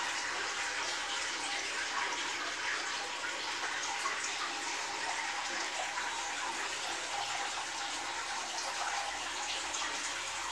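Aquarium water running and splashing steadily, a continuous hiss of moving water with faint small crackles.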